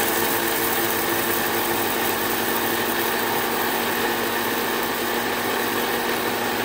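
Electric blender with a dry-grinding jar running steadily, grinding white peppercorns into powder.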